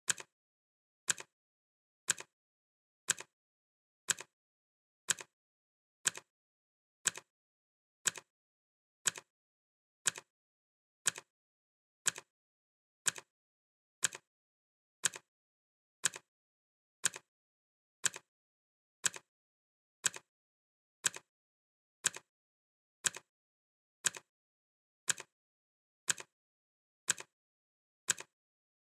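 Clock-ticking sound effect: one short, sharp tick every second, evenly paced, with silence between the ticks.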